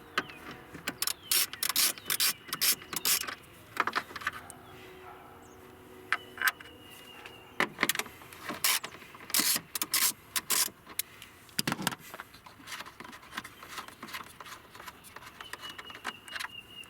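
Scattered clicks, knocks and rattles of hand tools and plastic parts in a car engine bay as the coolant reservoir is unbolted and worked loose, coming in clusters with short pauses between.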